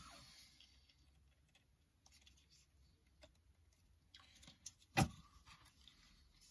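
Faint handling noises of electrical wire and small parts: light rustling and scattered small clicks, with one sharp click about five seconds in.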